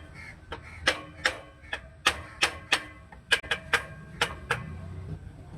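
Hammer tapping on metal clutch parts: about eleven sharp, ringing strikes at an uneven pace, stopping about four and a half seconds in.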